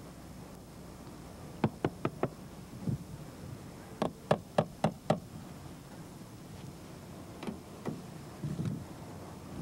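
Knocking on a car's side-window glass in quick runs of four or five raps, with a couple of single knocks near the end.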